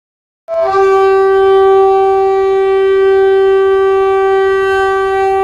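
A long blast on a single-note train horn, held at one steady pitch for about five and a half seconds, starting half a second in with a brief higher note.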